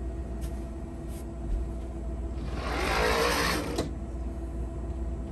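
Mini blind being pulled down over a tall window, its slats rattling for about a second and a half, over a steady low hum.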